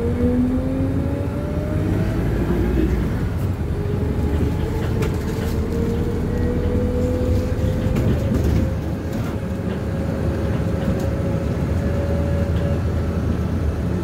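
Bus engine and drivetrain heard from inside the cabin: a steady low rumble with a whine that slowly rises in pitch as the bus gathers speed.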